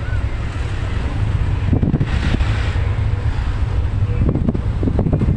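Steady low rumble of a minibus driving along a road, heard from inside the passenger cabin, with wind buffeting the microphone.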